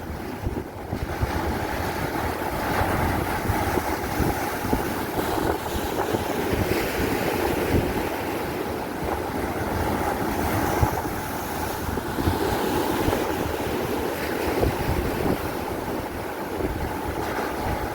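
Strong wind buffeting the microphone on a fishing boat at sea, with waves washing around the hull and a steady hum underneath.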